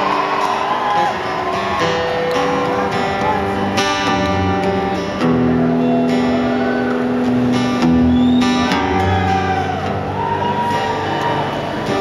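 Amplified steel-string acoustic guitar played live, picked notes and chords ringing out as the opening of a song, with scattered cheers and whoops from the crowd.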